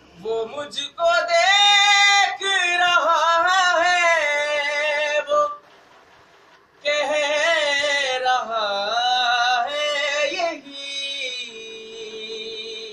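A young man's voice singing a devotional Shia recitation in two long, melismatic phrases with a short pause between them.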